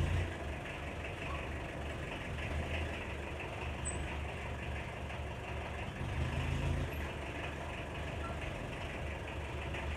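Mitsubishi Adventure's engine running at idle with a steady low hum, swelling briefly about six seconds in.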